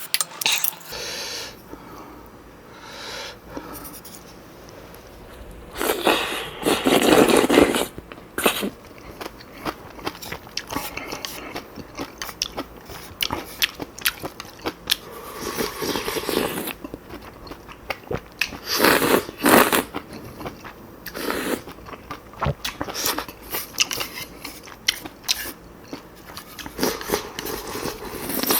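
Close-miked eating of Chapagetti black bean noodles with green-onion and ponytail-radish kimchi: repeated crunching bites and wet chewing, with louder spells about six seconds in and again near twenty seconds.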